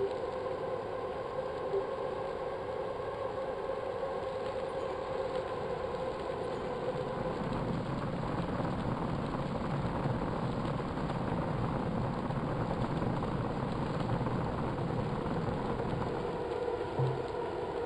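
A motor running with a steady hum, joined by a rougher rumble that swells through the middle.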